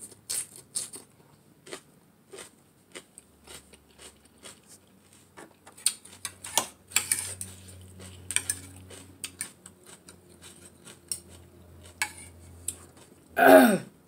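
Metal forks clinking and scraping against a plate as shredded carrot salad is tossed and lifted, in many short irregular clicks, with mouth sounds of chewing in between. A short loud voiced sound comes near the end.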